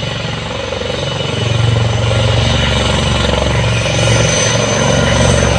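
A formation of four military helicopters flying low, their rotors beating steadily and growing louder about a second and a half in as they approach.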